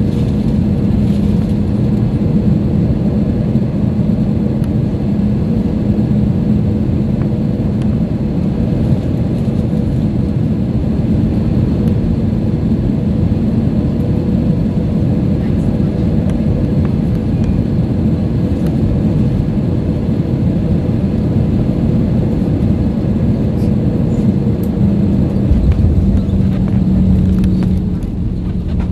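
Airbus A320 cabin noise on final approach: steady engine and airflow noise with a steady hum. About 25 seconds in a deeper rumble sets in as the aircraft is on the runway.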